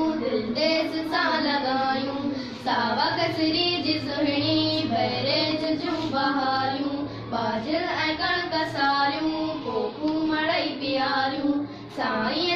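Young girls' voices singing a Sindhi poem in a sing-song melody, line after line, with brief breaks between lines.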